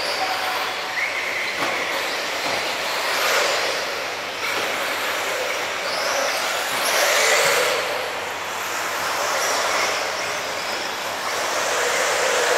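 1/8-scale electric RC off-road buggies racing on a dirt track: high brushless-motor and drivetrain whines rising and falling as they speed up and slow, over steady tyre and dirt noise.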